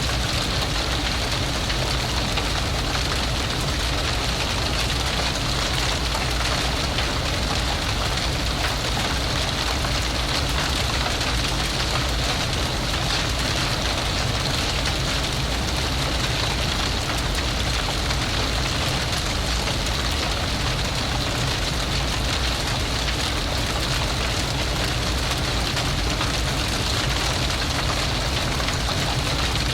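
Large fire blazing: a steady low rush of flames under dense, continuous crackling.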